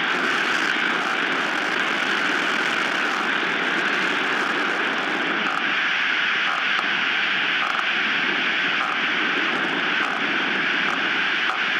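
Strong wind blowing steadily across an outdoor nest-camera microphone, a constant roar with a few faint ticks.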